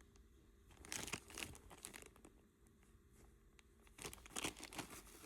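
Plastic jewelry bag crinkling as pieces are handled and taken out, in two bursts of rustling about a second in and again around four seconds in, with faint handling noise between.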